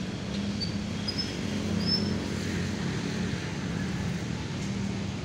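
Steady hum of motor traffic on the road beside the park, a vehicle engine swelling a little about two seconds in. A few short high chirps sound in the first two seconds.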